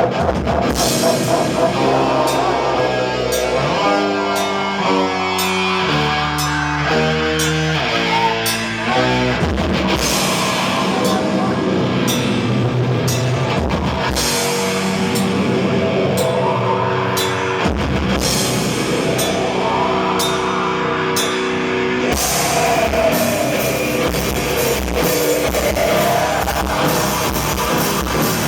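A black metal band playing live, with drum kit, guitar and keyboards sounding together. Sustained notes step through a short melody in the first third.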